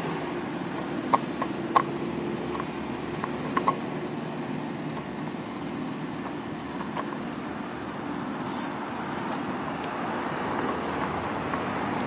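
Refrigerant hoses being purged of air at a manifold gauge set: a few light metallic clicks as the brass hose fittings are handled, and a short sharp hiss about eight and a half seconds in as a hose fitting is cracked open and gas escapes. A steady low hum runs underneath.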